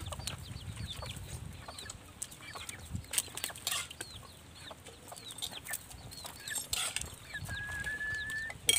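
Chickens calling around the yard, many short high calls that fall in pitch, with scattered clinks of spoons on plates as rice is served. One high note is held for about a second near the end.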